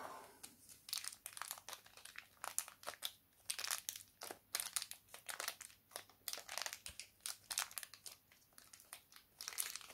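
Thin clear plastic protective wrap crinkling as it is handled and pulled off a 1/6-scale action figure's legs and boots, an irregular run of sharp crackles.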